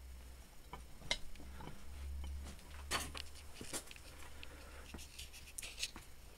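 Handling noise: scattered light clicks and rustles over a low steady rumble, with the sharpest clicks about a second in, near three seconds and near six seconds.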